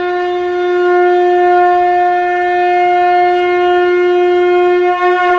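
Conch shell (shankh) blown in one long, steady note, wavering slightly near the end.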